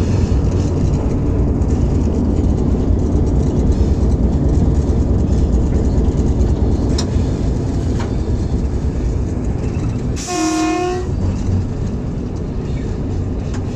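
Hitachi HBU-20 diesel-electric locomotive running, heard from its cab as a loud steady rumble. About ten seconds in, a short horn blast sounds for about a second.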